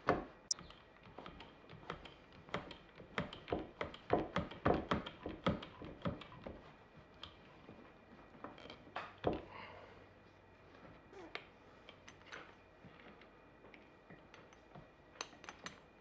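Hand-pumped hydraulic crimping tool clicking and knocking as it is worked to crimp a copper lug onto heavy cable. A quick run of clicks fills the first six seconds or so, a louder knock comes about nine seconds in, then scattered taps.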